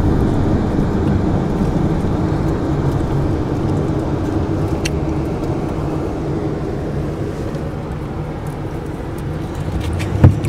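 Steady engine and road noise heard inside the cabin of a moving passenger van, with one sharp knock near the end.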